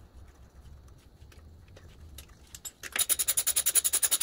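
Ratchet wrench clicking rapidly, about a dozen clicks a second for just over a second near the end, while a new spark plug is run into the engine's cylinder head. Before that come faint small ticks.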